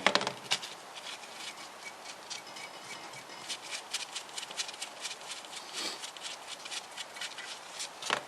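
Rapid, light metallic clicking of a spanner working a stud loose from a Classic Mini cylinder head, the stud gripped by two nuts locked together.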